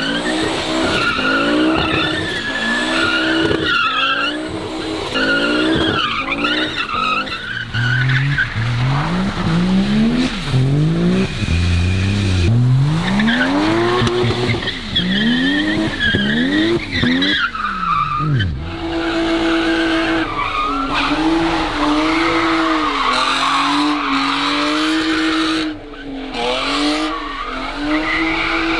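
Car engines revving hard as cars drift around cones, tyres squealing and skidding on wet concrete. Through the middle an engine revs up and down again and again in rising sweeps. In the last third a steadier, high engine note wavers as the next car slides.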